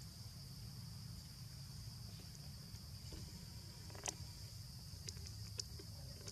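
A steady, high-pitched insect chorus of crickets or cicadas, faint, over a low rumble, with a few sharp clicks about four seconds in and again near the end.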